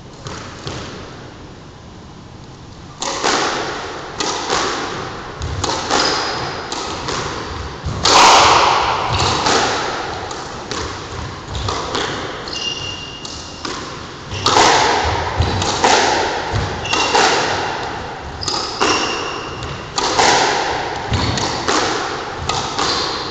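Squash rally: sharp knocks of the ball off racket strings and court walls, each echoing in the enclosed court, starting about three seconds in and coming every half second to a second. Short high squeaks of sneakers on the wooden floor come between the hits.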